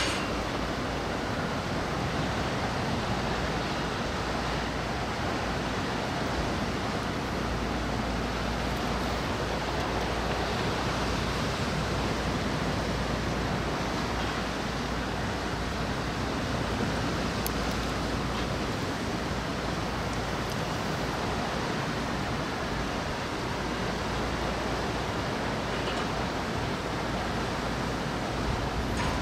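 Steady rushing noise of wind and rain, with wind buffeting the microphone in an uneven low rumble.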